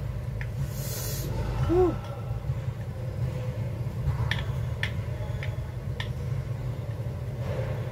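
Chopsticks clicking against a bowl while instant noodles are stirred: about four sharp clicks midway, over a steady low hum. About two seconds in, a brief pitched tone rises and falls.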